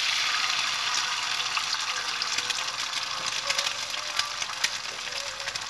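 An egg frying in hot oil in a non-stick pan: a steady sizzle, loudest at first and easing slightly, with small pops and crackles that grow more frequent after a couple of seconds.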